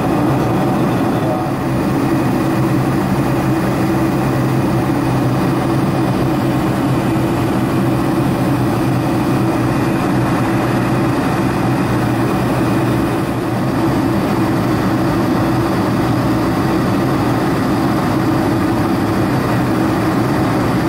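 Steady cabin noise of a Boeing 747-400 in flight, heard from a seat beside the wing: the even drone of its GE CF6-80C2 turbofans mixed with the rush of airflow over the fuselage, with a low hum underneath.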